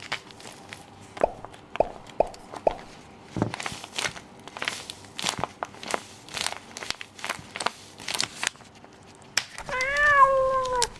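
Crinkling, rustling and light tapping of a blind bag's packaging being handled, in short bursts. Near the end comes one drawn-out meow-like call that rises and then falls slightly.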